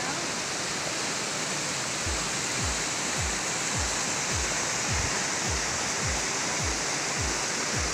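Steady rush of a tall waterfall. From about two seconds in, a low thudding beat of background music joins it, about two beats a second.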